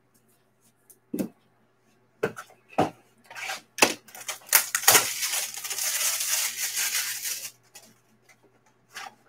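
Hard plastic graded-card slabs clack several times as they are handled and set on the table. Then about two and a half seconds of crinkling plastic shrink-wrap come from a wrapped pack being handled.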